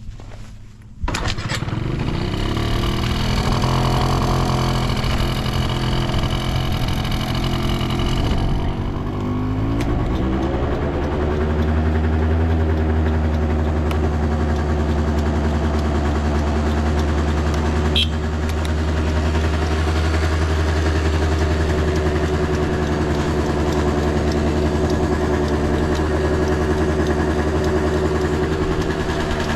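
Honda Live Dio AF35 scooter's 50cc two-stroke single-cylinder engine starting about a second in and running, its note shifting around ten seconds in and then settling into a steady run with no abnormal noise.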